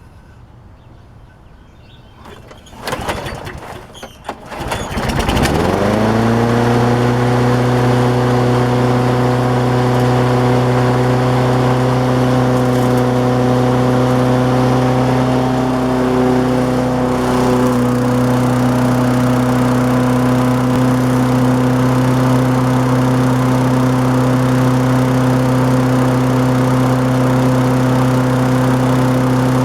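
Propane-converted walk-behind lawnmower engine starting. A couple of brief cranking bursts come first, then it catches about five seconds in, speeds up quickly and settles into steady running.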